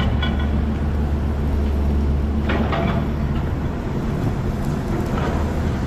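Large engine of a heavy machine running steadily with a low drone, with a brief higher-pitched sound about two and a half seconds in.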